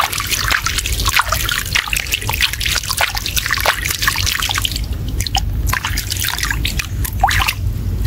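Shallow water trickling and dripping, with many small, irregular splashes and plops over a steady low rumble.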